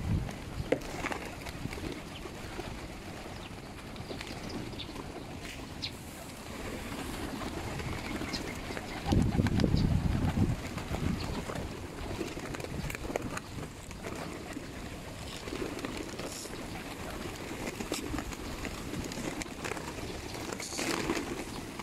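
Flock of feral pigeons milling close by, cooing, with wings flapping and scattered small ticks. A brief louder low rush comes about nine seconds in.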